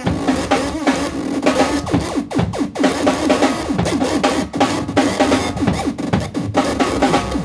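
Loud live noise music: a dense, unbroken wall of distorted sound full of quick downward pitch sweeps and sharp percussive hits, with a strong low hum underneath.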